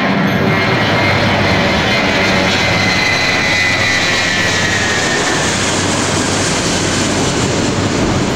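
Twin-engine jet airliner at take-off thrust, climbing out overhead: a loud, steady engine roar with a high whine that slides down in pitch about three to five seconds in.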